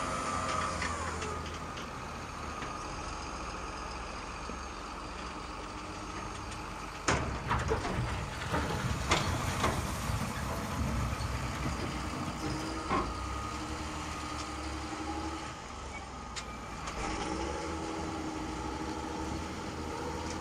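Radio-controlled model Liebherr L574 wheel loader with a hydraulic conversion at work: a steady whine from its hydraulic pump and motors, whose pitch falls away about a second in. From about seven to ten seconds in there is a cluster of sharp knocks and thuds as its bucket tips snow into the toy tipper truck's bed.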